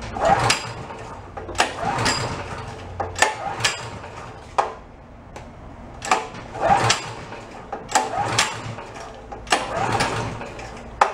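Recoil pull starter of a Honda GX engine being yanked repeatedly, each pull a short whirr of rope and engine turning over and often followed by the rope rewinding. The engine cranks without catching or running; it is being checked for missing spark.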